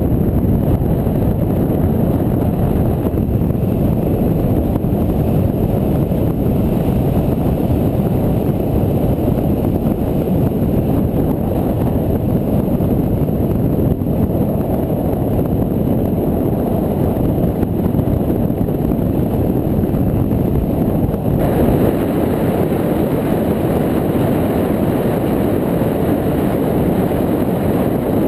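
Steady low rumble of a car driving on a wet road, wind and road noise on the camera's microphone, turning brighter about three-quarters of the way through.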